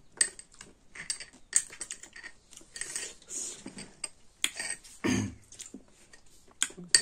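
Metal fork and spoon clicking and scraping against a small glass bowl as mulberries are stirred. A duller thump comes about five seconds in as a glass bowl is handled.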